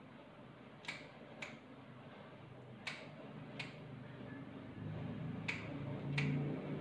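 Six sharp clicks of a dog-grooming cutting tool, coming in three pairs with a pair about every two seconds. A low hum grows louder behind them in the second half.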